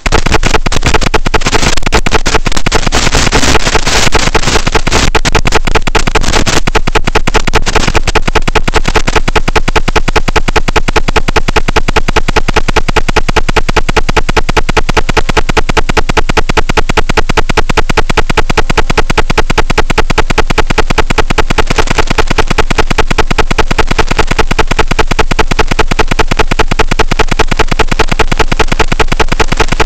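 Loud, steady electronic buzz with a rapid, even pulse: the static of an analog FPV video link, recorded as audio by the goggles' DVR while the crashed quadcopter lies still.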